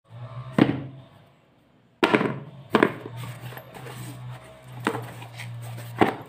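Cardboard shipping box handled and cut open with scissors: a knock as the box is set down, then a few more sharp knocks with rustling and scraping as the packaging is worked.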